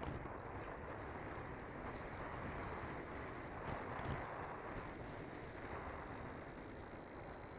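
Air rushing over a Bixler II Sport RC plane in gliding flight, heard as steady wind noise on its onboard camera's microphone.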